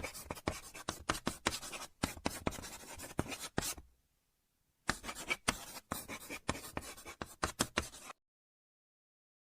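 Writing on paper, with quick, irregular scratching strokes in two runs. The first run lasts about four seconds; the second starts after a second of dead silence and lasts about three seconds.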